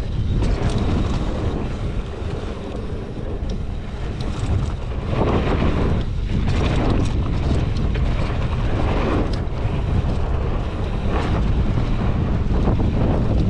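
Wind rushing over the microphone of a mountain bike descending a dirt flow trail, over the rolling rumble of knobby tyres on packed dirt, with scattered clicks and rattles from the bike over bumps.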